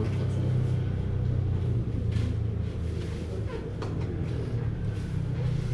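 A steady low engine rumble, with a few faint light knocks about two and four seconds in.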